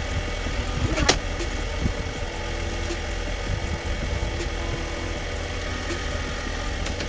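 Car engine idling steadily, with one sharp knock about a second in.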